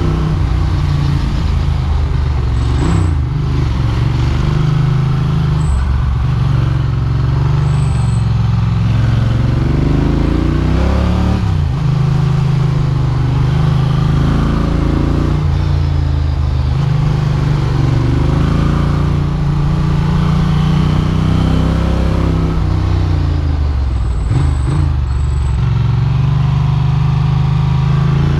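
Ducati Monster's V-twin engine pulling a rider along a winding road, its note dropping and climbing again several times with the throttle and gear changes.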